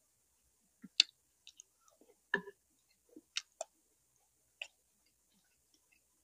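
Close-miked eating: a person chewing braised pork leg and rice, heard as scattered sharp mouth clicks and smacks, about half a dozen in all, the loudest about a second in and near the middle.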